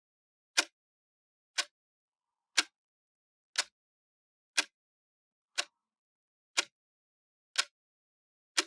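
Clock ticking once a second: sharp, evenly spaced ticks with silence between them.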